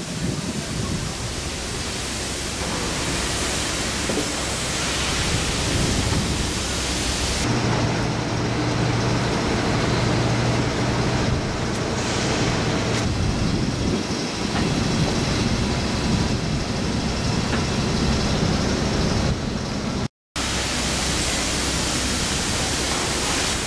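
Wind rushing over the microphone, a steady noise throughout. A low hum joins for several seconds about a third of the way in, and the sound cuts out for a moment near the end.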